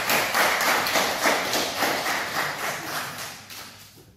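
Audience applauding with many quick, irregular claps, dying away over the last second or so.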